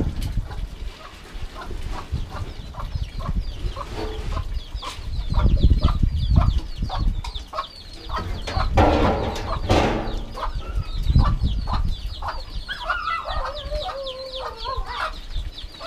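Chickens clucking, a rapid run of short calls with high little notes above them, over a low rumble. A louder, rougher burst comes about halfway through, and a longer wavering call near the end.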